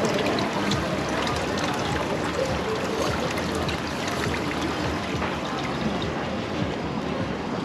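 A steady wash of outdoor background noise, even and unbroken, with no single sound standing out.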